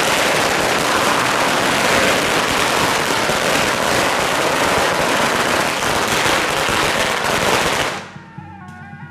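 A long string of firecrackers going off in a dense, continuous crackle, which stops suddenly about eight seconds in. Traditional wind-band music is heard again after it stops.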